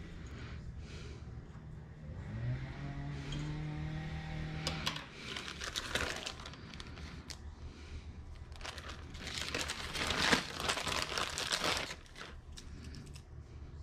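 Clear plastic zip-lock parts bag crinkling and rustling as it is opened and handled, densest and loudest in the second half. A low pitched drone comes before it in the first few seconds.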